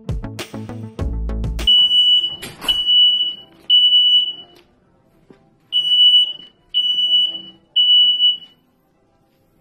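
Hotel room smoke alarm sounding a high beep in groups of three, three beeps, a short pause, then three more. It is going off for no reason, a fault put down to a dead battery. A music jingle ends about a second and a half in.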